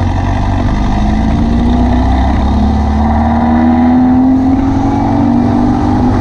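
VW beach buggy's engine running under way, its pitch climbing slowly as the buggy picks up speed.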